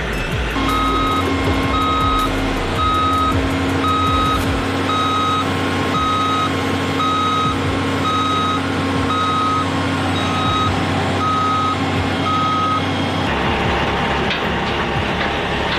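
Backup alarm on a heavy military truck beeping steadily about once a second over the truck's running engine; the beeping stops a few seconds before the end and the engine note changes.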